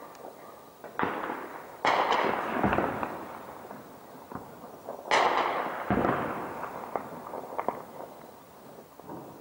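Distant combat: heavy blasts about one, two and five seconds in, each trailing off in a long rolling echo, with scattered single gunshots cracking between them.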